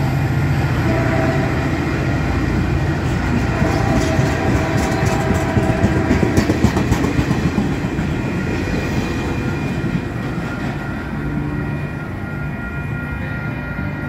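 Caltrain bilevel passenger cars rolling past close by, their wheels clattering over the rails. The sound eases off over the last few seconds as the end of the train goes by.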